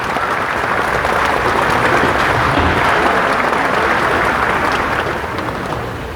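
Chicken pieces sizzling steadily as they fry in a hot pan, a dense crackling hiss that eases slightly near the end.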